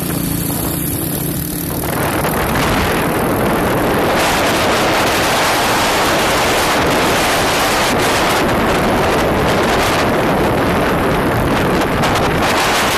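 Wind rushing over the microphone of a moving vehicle, with a steady engine hum under it at first. About two seconds in, the wind noise grows louder and covers the engine.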